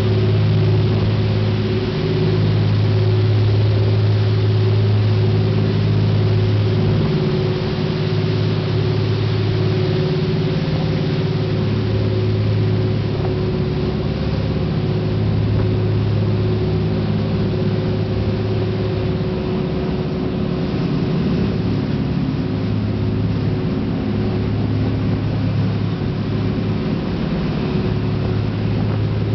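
Catamaran fishing boat's engines running hard at cruising speed, a constant low drone, with the rush of the churning wake and wind over the deck.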